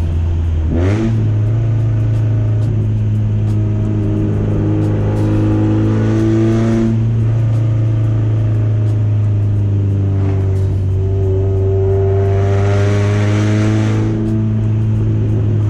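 Porsche 944's four-cylinder engine running at part throttle through a fully open exhaust with no catalytic converter and no mufflers, giving a loud, deep drone. Its pitch rises about a second in and then holds steady. The note grows brighter and rougher from about twelve to fourteen seconds in.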